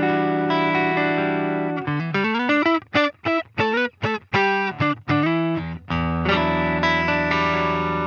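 Electric guitar played through the Line 6 Pod Go's clean Fender Deluxe-style amp model (US Deluxe Vibe). A chord rings for about two seconds, then comes a quick run of single notes with slides, and chords again near the end.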